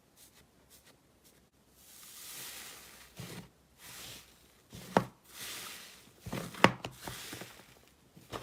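Slime being handled up close: soft squishing swells broken by a few sharp pops, loudest about five seconds in and again between six and seven seconds.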